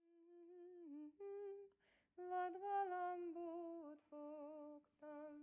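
A person humming a slow tune, one note at a time, with a short breath about two seconds in.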